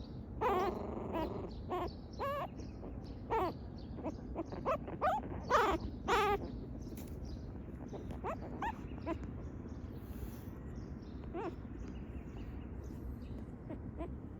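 Young puppies crying and whining: a string of short, high-pitched, wavering cries, thick in the first half and fewer and fainter after.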